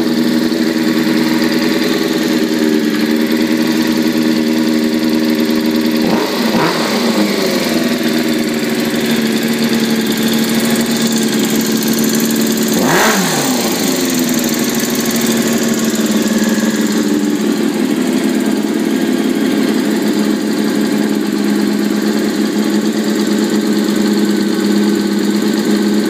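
Honda CBR600F4i inline-four engine idling steadily and revved briefly twice, about six and thirteen seconds in, the pitch rising and falling back to idle each time. The owner hears a strange sound from this engine.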